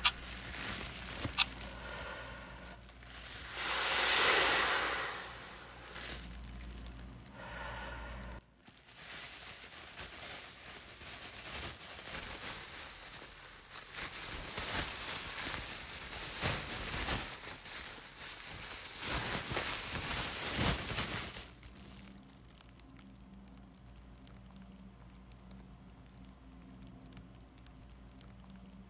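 Large clear plastic bag crinkling and rustling as its neck is handled and closed, with many small crackles. Before that come noisy swells, the loudest about four seconds in, and after about twenty-one seconds only a faint steady room hum remains.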